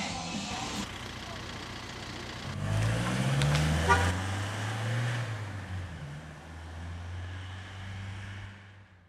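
Van engine pulling away and driving off, its note rising as it accelerates, with a short horn toot just before four seconds in. The engine sound then fades away.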